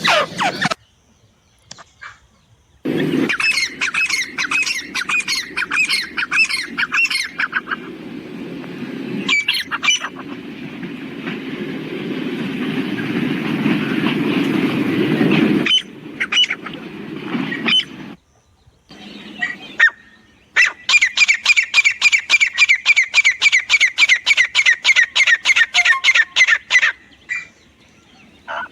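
Francolins calling: quick runs of repeated sharp, high notes in several separate bursts, the longest one near the end. In the middle a steady rush of noise grows louder and then stops abruptly.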